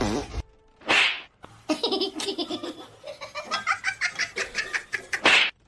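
A person laughing in a long run of quick, breathy bursts, with a short noisy burst about a second in and a louder one near the end.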